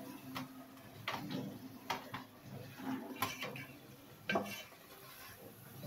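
A spatula stirring chicken and potato curry in an aluminium pot, scraping and knocking against the pot's side at irregular intervals, about once a second.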